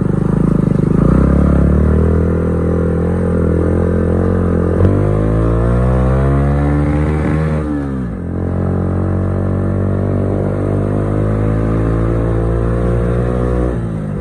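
Motorcycle engine under way, heard from the rider's seat. It runs steady at first, then climbs in pitch from about five seconds in as it accelerates, drops sharply near eight seconds, and runs steady again.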